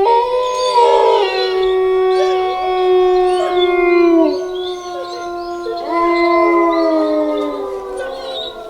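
A pack of wolves howling in chorus: several long, overlapping howls at different pitches, some sliding down in pitch, with a fresh howl rising about six seconds in and the chorus fading near the end.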